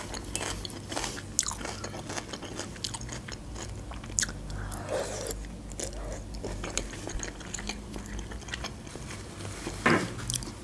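A person chewing food close to the microphone, with many scattered wet mouth clicks and crunches and a louder cluster of them near the end.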